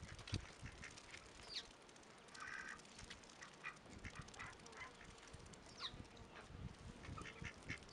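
Faint, scattered calls from a mixed flock of ducks, geese and chickens: short high peeps and chirps, a few calls that slide down in pitch, and a brief nasal call about two and a half seconds in.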